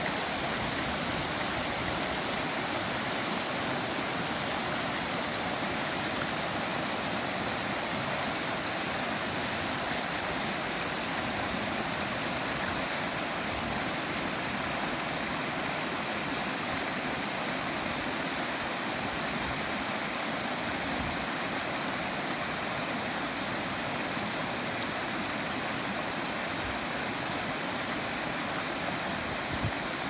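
Shallow rocky creek rushing and burbling over stones and small riffles: a steady, even water noise.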